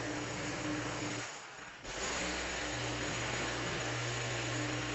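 Small petrol engine of a garden power tool running steadily under a loud hiss. It drops out briefly about a second and a half in, then picks up again.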